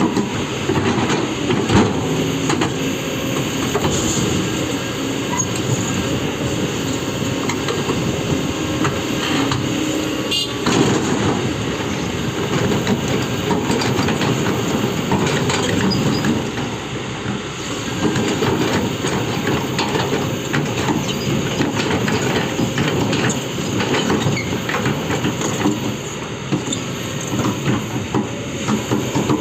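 Heavy machinery running steadily, with a constant clattering of metal parts and a hiss over a low engine rumble, typical of an excavator at work.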